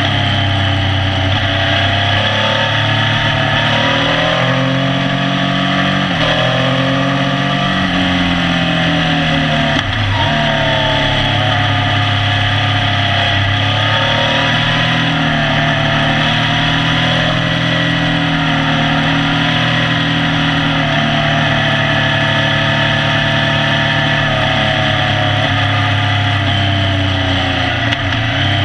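Motorcycle engine running under way, its pitch rising and falling with the throttle, with a brief drop about ten seconds in, over steady wind and road noise.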